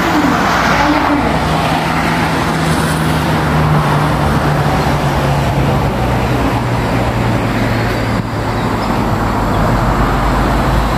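Steady road traffic noise from cars and buses driving along a multi-lane road: a continuous rush of tyres and engines with a low engine hum underneath.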